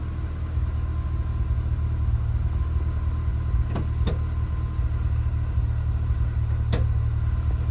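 Acura Integra engine idling steadily with a low, even rumble. A few faint clicks sound over it, two close together a little past halfway and one more near the end.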